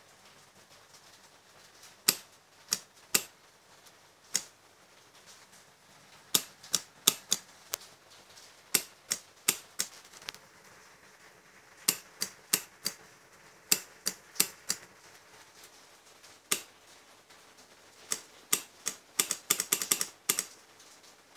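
Sharp clicks at irregular intervals, some in pairs and threes, bunching into a quick run near the end.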